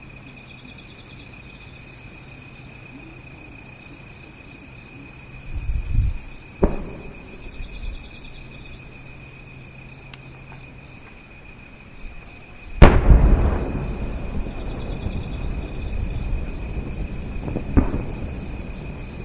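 Aerial firework shells going off: a dull low thump about six seconds in, then a sharp bang, and the loudest bang about two-thirds of the way through, trailing a long rolling rumble, with one more sharp bang near the end. Crickets chirp steadily throughout.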